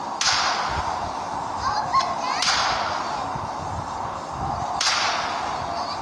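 A ground-launched firework firing shots into the air: three sharp launches about two seconds apart, each trailing off, over a steady hiss from the firework burning.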